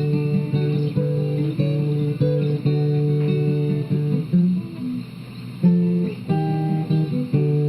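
Instrumental song intro: strummed guitar chords in a steady rhythm with a bass line, with a short break in the strumming about five seconds in.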